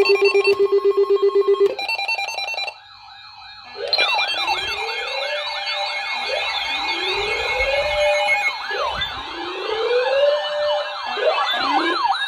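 Electronic emergency-alert tones. A rapid, loud buzz lasts under two seconds, followed by a short pulsed beeping. From about four seconds in, several siren tones sweep up and down over one another, some quick and repeating, one slower and rising, signalling an incoming severe weather warning.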